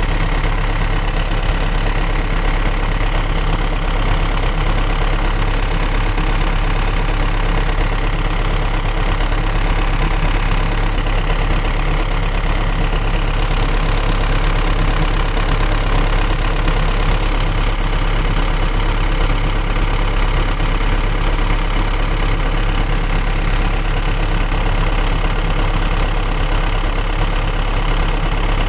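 Diesel engine of a 1998 Samsung 130LC excavator idling steadily.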